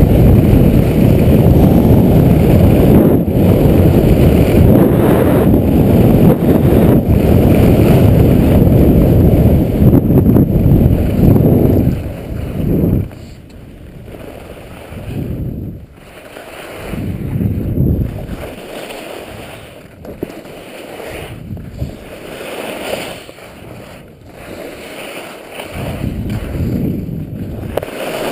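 Wind noise on a skier's body-mounted camera microphone during a fast downhill run, loud for about the first twelve seconds and then dropping away. After that, skis scrape and hiss over snow in repeated swells.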